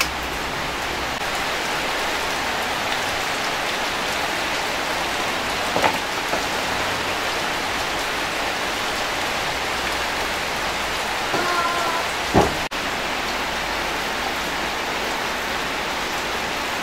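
Steady rain falling, a constant even hiss, with a couple of short knocks.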